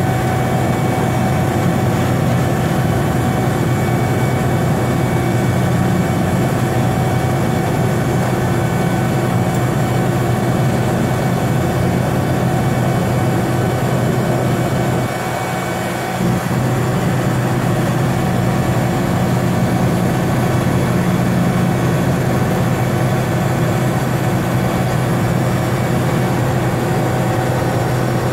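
GE H80 free-turbine turboprop of a DHC-3 Otter seaplane running steadily after start, heard inside the cockpit: a constant low drone with steady high-pitched tones above it. The level dips briefly about halfway through, then comes back.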